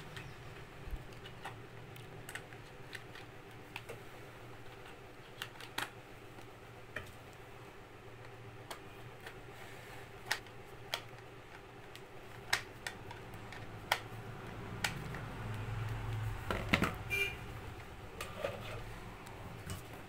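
Irregular light clicks and taps of a table fan's plastic motor back cover being pressed into place and screwed on with a screwdriver, with a louder cluster of clicks near the end.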